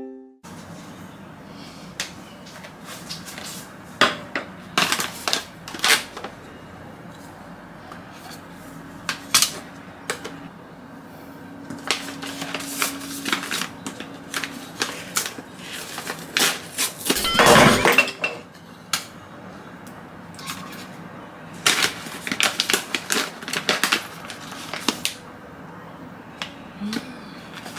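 Crinkling and rustling of a foil coffee-bean bag being opened and handled, with scattered clicks and knocks of things set down on a countertop; one longer, louder rustle comes a little past the middle.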